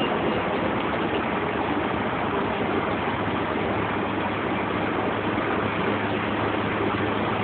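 Inside a New Flyer DE40LFR diesel-electric hybrid transit bus under way: a steady mix of drivetrain and road noise with a low, even hum.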